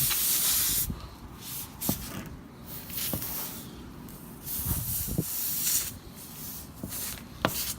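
Intermittent hissing with a few light clicks and knocks as a tyre plug kit's reamer is worked into a nail hole in a car tyre.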